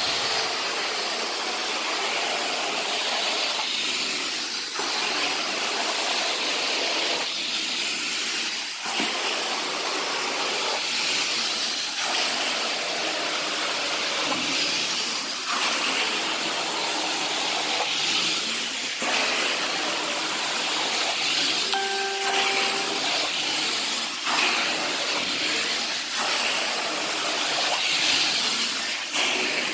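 Carpet-cleaning extraction wand spraying and sucking up cleaning solution in strokes across carpet, a steady hiss of spray and vacuum that eases briefly every few seconds between strokes. About two-thirds of the way through, a short pitched tone sounds for about a second.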